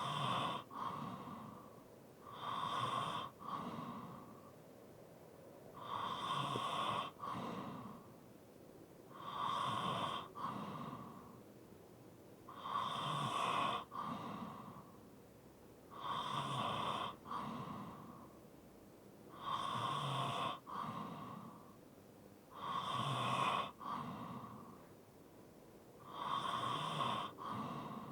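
A sleeping person breathing heavily with light snoring, in a steady rhythm of about one breath every three and a half seconds, each breath in two parts.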